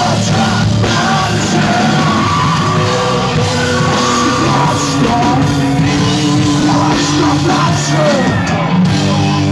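Live rock band playing loud, heavy rock music with vocals, mid-song.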